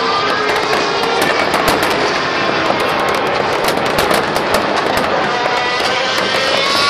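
Aerial fireworks bursting over water: a rapid run of sharp cracks and bangs with crackling. Under them, racing-car engines on the circuit whine and rise in pitch.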